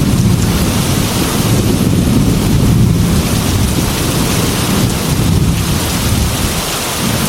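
Heavy rain pouring steadily, with a low rolling rumble of thunder that swells and ebbs underneath.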